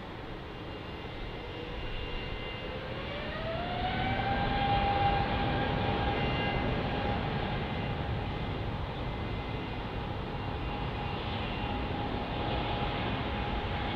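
Jet airliner's engines spooling up. A whine rises in pitch a few seconds in, then holds steady over a broad rumble, and the sound gets louder as it rises.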